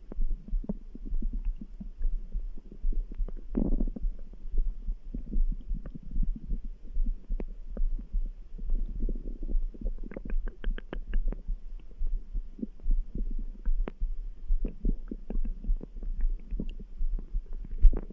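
Human stomach gurgling and grumbling over a steady, throbbing background heartbeat. A louder gurgle comes a few seconds in, and a quick run of small bubbly pops comes about halfway through.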